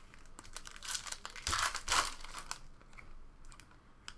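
A foil trading-card pack being torn open, its wrapper crinkling and crackling, loudest about one and a half to two and a half seconds in.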